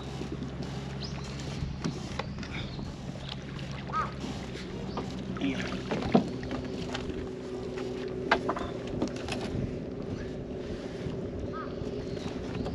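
Boat engine running steadily nearby, its hum shifting higher about halfway through, with a few sharp knocks, the loudest about six seconds in.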